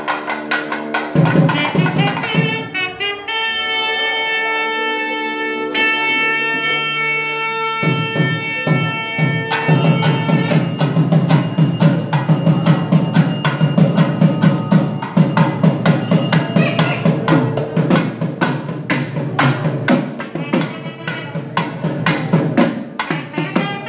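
Nadaswaram and thavil playing temple music: a held, reedy nadaswaram melody over fast thavil drum strokes, the drumming growing denser and louder from about ten seconds in.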